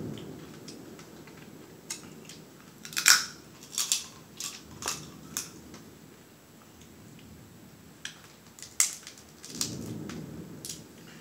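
Snow crab leg shell being cracked and snapped apart by hand: a run of short, sharp crackles, the loudest snap about three seconds in, with another cluster near the end.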